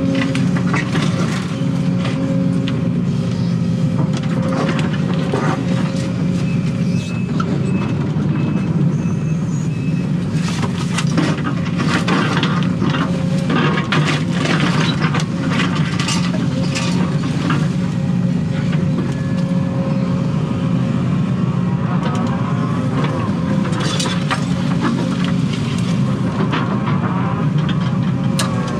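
Excavator diesel engine running steadily, heard from inside the cab, under many sharp cracks and knocks from the bucket digging around a tree stump and its roots.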